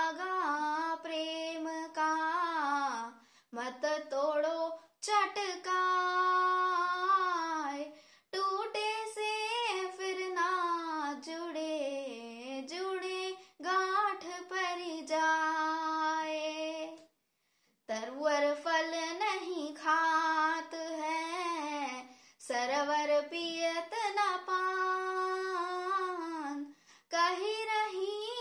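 A boy singing Hindi dohe (devotional couplets) solo and unaccompanied. His held notes slide up and down in phrases of a few seconds, with short pauses for breath between them.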